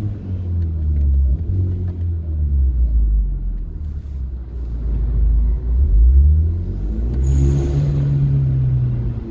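Hyundai Genesis Coupe engine and exhaust driving through a parking garage, the note dropping off and then climbing hard about six seconds in. A brief sharp hiss comes at the peak of the rev before the note falls away again.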